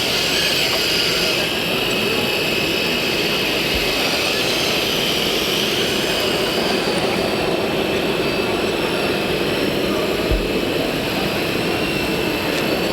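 Steady whine of small electric motors and gearing from RC model trucks, with a wavering higher whine that rises and falls, over a constant noisy background; a small low thump about ten seconds in.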